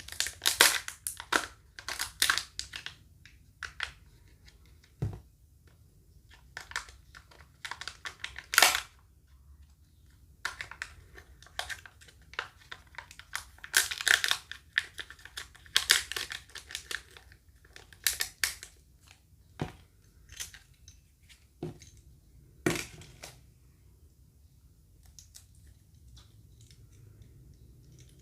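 Wrapper of a Kinder Joy surprise egg crinkling and tearing in irregular bursts as it is opened by hand, with a few sharp clicks, dying down about 23 seconds in.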